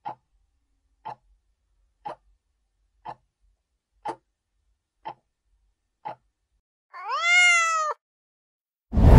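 A ticking sound effect counting down, about one tick a second, seven ticks; then a single cat meow sound effect, about a second long, rising and falling in pitch. A short loud whoosh follows near the end.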